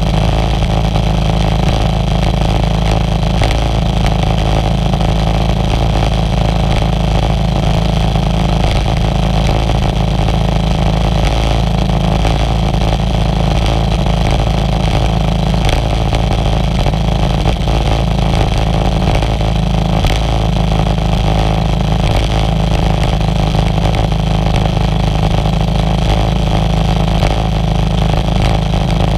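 Motorized outrigger boat's engine running steadily at cruising speed, with the hiss of spray off the hull.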